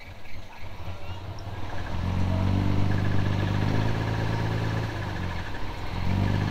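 Heavy diesel engine of earthmoving equipment, a bulldozer or dump truck. It rumbles low and uneven at first, then about two seconds in the revs rise to a loud, steady run under load. It eases slightly around five seconds and picks up again near the end.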